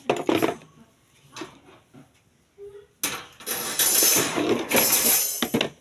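Rustling and clattering of the desk fan's plastic parts and packaging being handled: a short burst at the start, a few light knocks, then a louder stretch of rustling about three seconds in that stops near the end.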